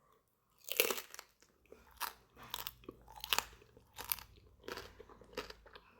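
Crispy crackling skin of a roasted pork knuckle crunching: a series of sharp, dry crunches about every half second to a second, the loudest about a second in.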